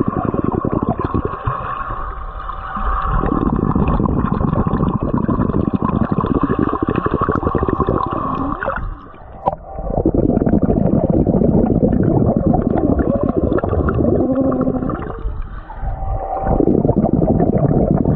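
Muffled underwater sound in a swimming pool: air bubbles and churning water crackling over a low rumble, as heard by a submerged GoPro. It dips briefly quieter a few times, most clearly about nine seconds in.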